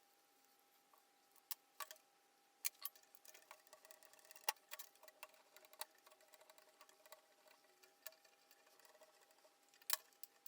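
Quiet, irregular clicks and light taps of small hard objects being handled, busier for a few seconds in the middle, over a faint steady hum.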